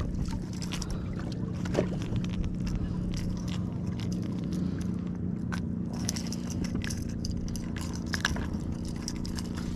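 Small clicks and scrapes of a lure's treble hooks being worked out of a white bass's mouth by hand, most frequent in the second half, over a steady low hum.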